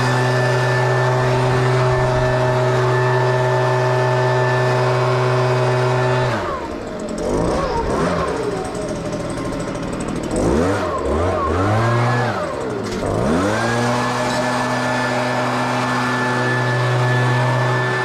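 Engine of a Hustler Trimstar 52-inch walk-behind mower running at a steady speed. About six seconds in, its speed drops and wavers up and down for several seconds, dipping deepest near the thirteenth second, then climbs back to a steady run.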